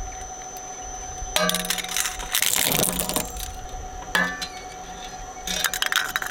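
Twin-shaft shredder running with a steady hum as toy cars are fed into its cutters. Bursts of cracking, crunching and metallic clinking as the blades chew the toys come about a second and a half in, again near four seconds, and near the end.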